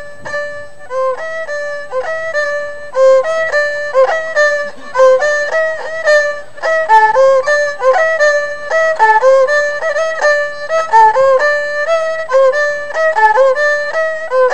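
A Khmer two-string tro fiddle played with a bow: a quick single-line melody of short notes, with little slides between some of them.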